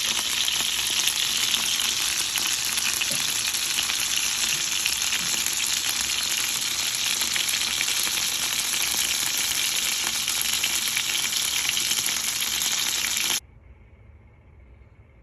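Food frying in hot oil: a steady sizzling hiss with fine crackles, cutting off abruptly near the end.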